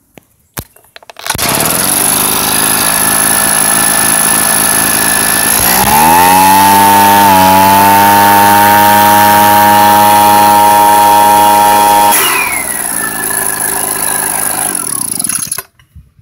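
Echo PB-260L backpack leaf blower's small two-stroke engine starting up about a second in and idling, then revving to full throttle a few seconds later with a rising pitch and holding there for about six seconds. It drops back to idle and shuts off near the end.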